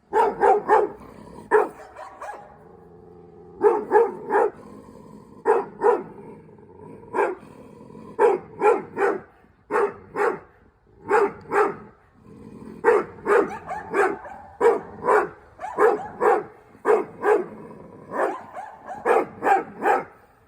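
Dogs barking in quick runs of two or three barks, again and again, with lower drawn-out sounds between some runs.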